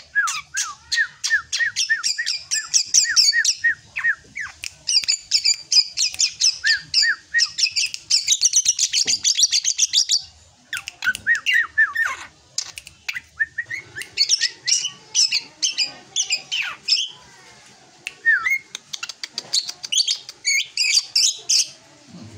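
Young drongo singing: fast bursts of sharp chattering notes with runs of short falling whistles, broken by brief pauses.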